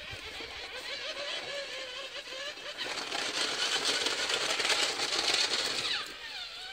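Small tracked robot driving over concrete: its electric gear motors whine, wavering and gliding in pitch as the speed changes, over the rattle of the tracks. The sound is loudest in the middle, and near the end the whine dips and rises again.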